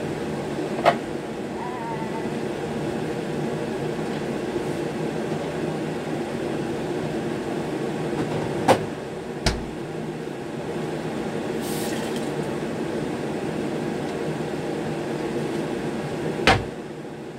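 A steady low rushing hum runs throughout. Over it come a few sharp clacks and knocks as kitchen things are handled: one about a second in, two close together around the middle while the refrigerator is open, and a last knock with a dull thump near the end as a wall cupboard is reached into.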